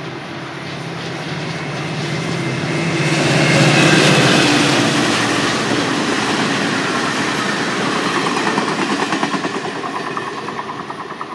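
Caltrain F40PH diesel locomotive hauling gallery passenger cars past at speed. The locomotive's engine and the train noise are loudest as it goes by about four seconds in. The cars' wheels then clickety-clack over the rail joints in a quick, regular rhythm toward the end.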